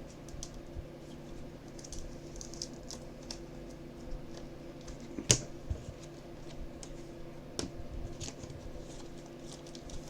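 Light clicks and taps of trading cards being handled and sorted, with one sharper snap about five seconds in, over a steady low hum.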